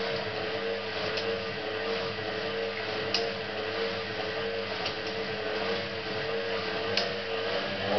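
Hotpoint 18371 Super Electronic washing machine running, its motor giving a steady whine with a slight wobble and a few light clicks. Right at the end the motor begins to speed up, its whine rising in pitch.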